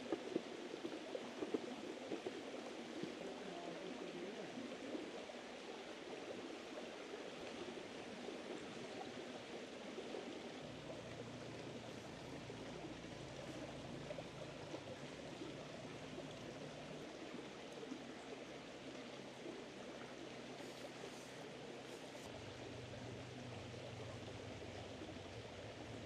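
Steady rushing of a flowing stream or river, unbroken and even.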